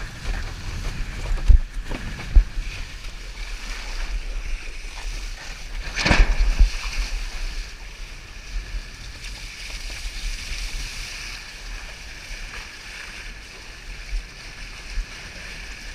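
Windsurf board sailing: water rushing under the hull and wind rumbling on the camera's microphone, with a few sharp knocks of the board on the chop. About six seconds in comes a louder rush of water and wind.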